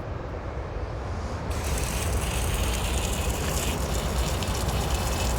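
Water spraying from a hose onto a ladder: a steady hiss that gets much stronger and brighter about a second and a half in, as the spray opens up.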